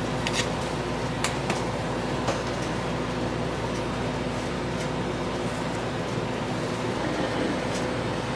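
Steady machine hum of shop equipment, with a few faint light clicks scattered through it.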